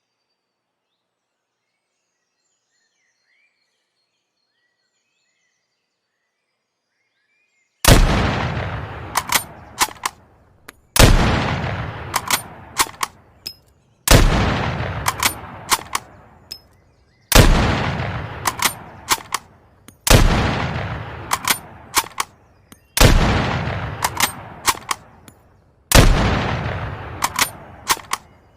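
Mosin-Nagant 1891/30 bolt-action rifle (7.62×54mmR) fired seven times, about three seconds apart, starting some eight seconds in. Each loud shot rings out and fades, with a few sharp clicks of the bolt being worked before the next shot.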